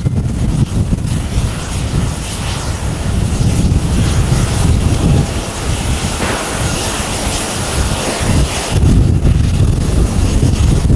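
Jet engines of a Boeing 777-200ER airliner running at low power as it taxis, a steady hiss over a low rumble, with wind buffeting the microphone.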